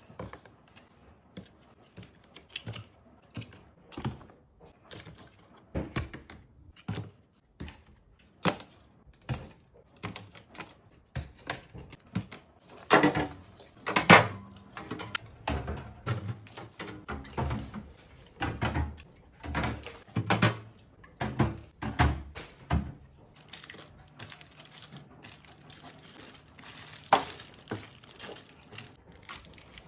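Irregular knocks and clunks of food packages and containers being picked up and set down into storage trays and baskets, with some crinkling of packaging.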